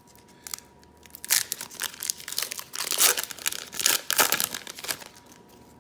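Foil Pokémon card booster pack wrapper crinkling as it is handled and torn open by hand, in a run of irregular crackles from about a second in until near the end.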